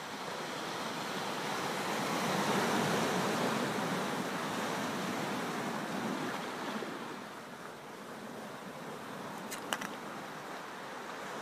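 Ocean surf washing on a shore: a rushing swell of waves that builds, then eases off. A short cluster of sharp clicks comes near the end.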